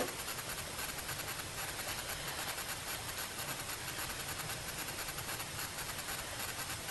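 Steady rushing noise of wind and water washing past a sailboat's bow while it sails.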